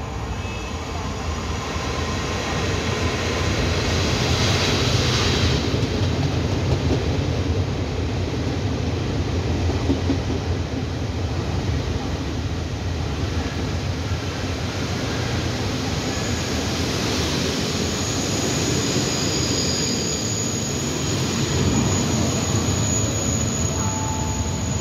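Taiwan Railway passenger train of coaches running along the platform track past the listener, a steady rumble of wheels on rail that is loudest as the cars go by. A thin high squeal joins in during the second half.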